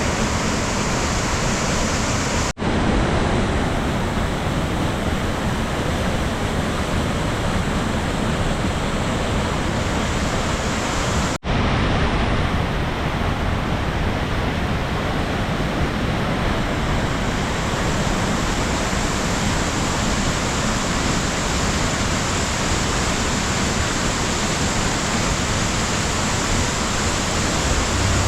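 A large waterfall in heavy flow after days of rain, a loud, steady rush of falling water. It drops out for an instant twice, about two and a half and eleven and a half seconds in.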